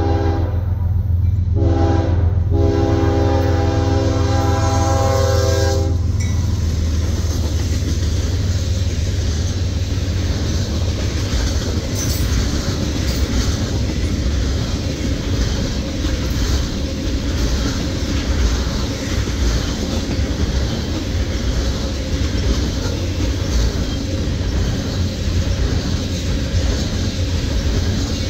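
Freight locomotive's air horn sounding at a grade crossing: a long chord broken twice briefly, stopping about six seconds in, over a low diesel rumble. Then a string of tank cars rolls by, wheels rumbling and clacking over the rail joints.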